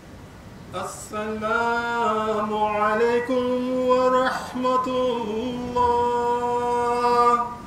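A single man's voice chanting a long melodic phrase in the style of Islamic liturgical chant, with long held, wavering notes. The chant starts about a second in, breaks briefly about halfway, and stops just before the end.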